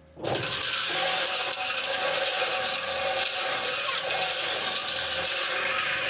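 Electric mini concrete mixer with a 1.5 HP Havells motor cutting in abruptly just after the start, then running steadily: motor hum and the turning drum rattling a load of crushed stone aggregate.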